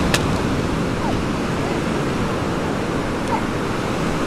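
Steady wash of ocean surf mixed with wind noise on the microphone, with a single sharp click just after the start.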